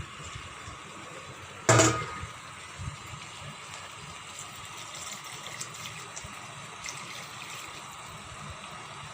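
Steady watery hiss from cooking liquid, with one loud clatter about two seconds in and a few light clicks after it.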